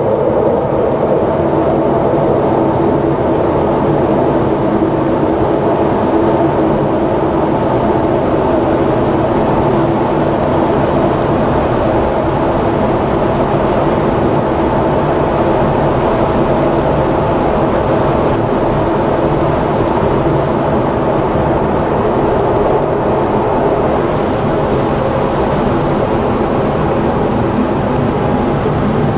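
Cockpit noise of an F-16 fighter jet in flight: a loud, steady rush of jet engine and airflow heard inside the canopy, with a low hum running underneath. A high steady tone joins about five seconds before the end.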